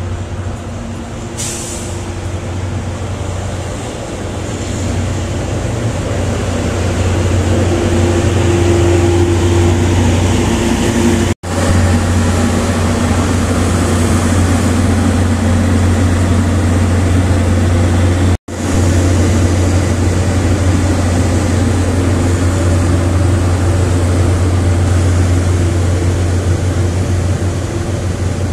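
PNR INKA DHL 9002 diesel-hydraulic locomotive running as it pulls a passenger train in, a steady low engine drone that grows louder over the first several seconds as it approaches and then holds. The sound cuts out abruptly twice for an instant.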